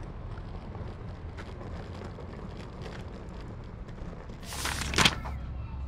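Street ambience: a steady low rumble of city traffic and wind on the microphone, with faint scattered ticks. About four and a half seconds in, a short loud rush of noise rises to a sharp knock.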